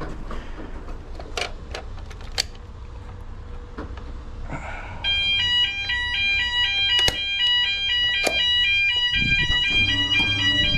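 A few sharp clicks, then about halfway through an electronic fire alarm sounder starts: a loud, high-pitched tone that switches rapidly back and forth between two pitches and keeps going.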